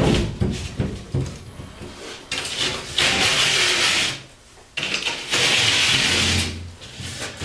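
Utility knife scoring the paper face of an upright drywall sheet: two long scratchy strokes, the first about three seconds in and the second about five seconds in, after some knocks and handling of the board.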